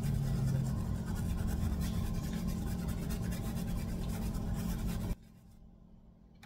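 Nearly dry stencil brush dabbing and scrubbing paint through a plastic stencil onto a small wooden plaque: a fast, scratchy run of strokes that stops suddenly about five seconds in.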